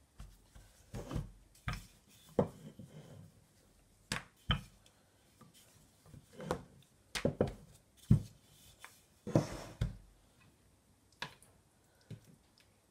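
Pie dough pressed by hand, then rolled out with a wooden rolling pin on a floured granite countertop: a string of irregular knocks and thumps.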